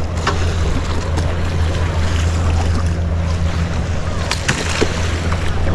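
Surf washing on the shore with wind noise over a steady low drone, and a couple of small knocks about four and a half seconds in.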